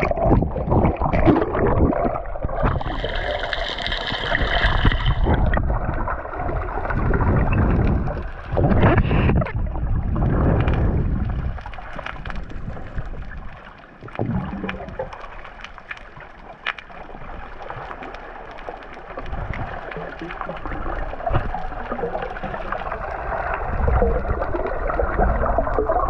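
Sea water splashing and sloshing around a camera at the surface, then muffled underwater gurgling once it goes under.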